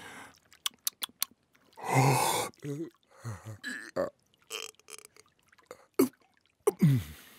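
A cartoon lion's voice failing to roar: it clears its throat about two seconds in, then makes only a few short, weak throaty croaks and gulps with gaps between them. A few light clicks come about a second in.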